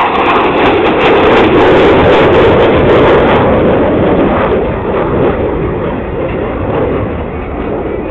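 Twin jet engines of a Navy F/A-18 Hornet flying past: a loud rushing jet noise, loudest in the first three seconds, then fading as the jet flies away.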